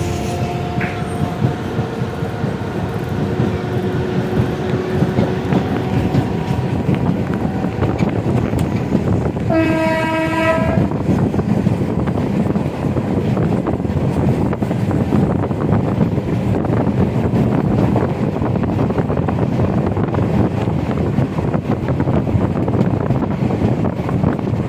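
Train running with a steady rumble and clatter of wheels on the rails. About ten seconds in, its horn sounds once for about a second.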